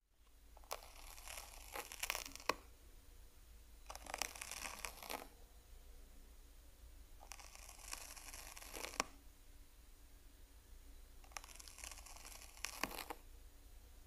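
Faint crackling, crinkling rustle in four separate bursts of one to two seconds each, with sharp little ticks inside them.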